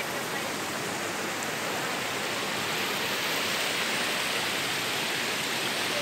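Steady rushing of a waterfall and creek water cascading over rock.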